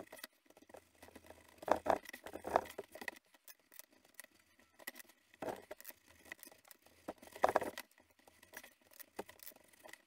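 Fingertips rubbing Tan-Kote leather finish into a dyed leather cuff strap and shifting it on a cutting mat: irregular soft rubbing and handling scuffs, louder around two seconds in and again past the halfway point.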